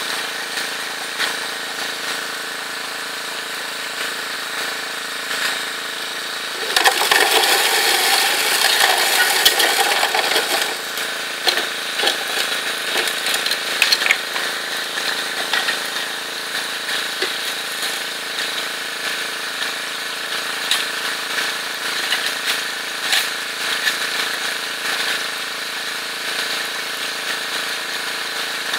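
Small engine of a highbanker's water pump running steadily under the crunch and scrape of a steel shovel digging into creek gravel and tipping it into the sluice hopper. The gravel noise is loudest for about three seconds, some seven seconds in.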